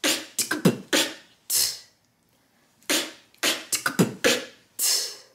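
Solo beatboxing at a slow tempo: the mouth-percussion pattern K-K-T-K-B-K-T, with an inward K snare, a B kick drum and a T hi-hat. It is played as two passes of about seven sounds each, roughly three seconds apart.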